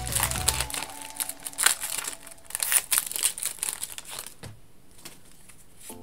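The foil wrapper of a Pokémon Chilling Reign booster pack crinkling and crackling in quick bursts as it is torn open by hand. The crackling stops about four and a half seconds in.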